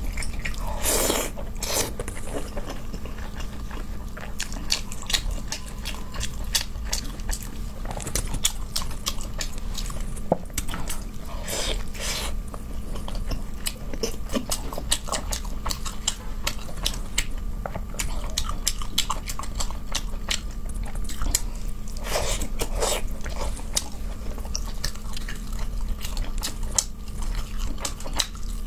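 Close-miked mouth sounds of someone eating fish: chewing and wet lip smacks, with many sharp clicks and a few longer wet sounds about a second in, near twelve seconds and near twenty-two seconds. A faint steady hum runs underneath.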